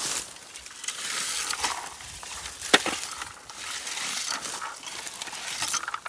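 A hand-held berry picker raking through lingonberry shrubs: dry rustling and crackling of leaves and twigs as its tines comb the bushes, with a few sharp clicks, the loudest about halfway through.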